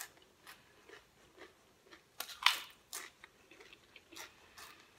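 Crunching and chewing of Pringles potato crisps in the mouth: scattered short, crackly crunches, loudest about two and a half seconds in.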